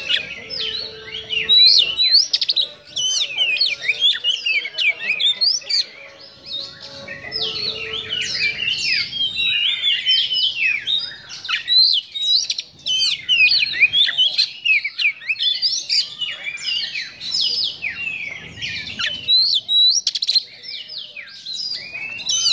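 Oriental magpie-robin singing a harsh-toned, fast, almost unbroken run of varied chirps, whistles and sweeping notes, with short pauses about twelve and twenty seconds in.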